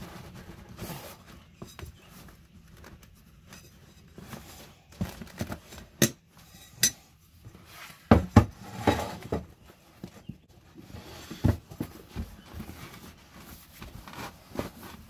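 Irregular clinks, knocks and rubbing as an old inner tube is pulled out of a wheelbarrow tyre and the tyre and rim are handled. A few sharper knocks come about six seconds in and again around eight to nine seconds.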